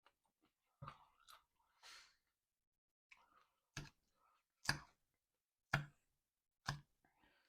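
Close-up chewing: sharp crunches of food about once a second, with softer mouth noises between.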